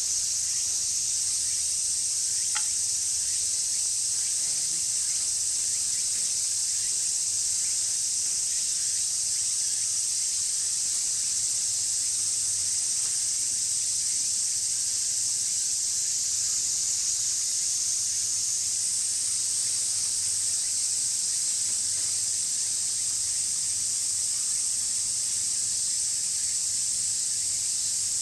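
Steady, dense chorus of insects with a continuous high-pitched buzz, and one faint click about two and a half seconds in.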